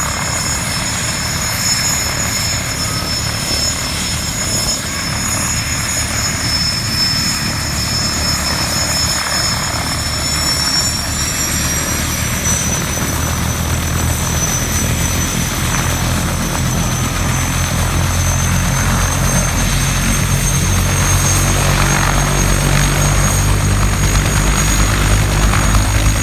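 Bell 214B helicopter running on the ground. Its turbine whine rises in pitch about ten seconds in, and the low beat of the main rotor grows steadily louder as power comes up for take-off.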